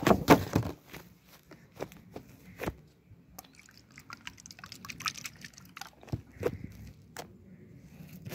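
Sticky slime being handled: a loud crackle and squelch as it is tipped out of a clear plastic clamshell container in the first second, then scattered soft clicks and wet squishes as it is worked by hand.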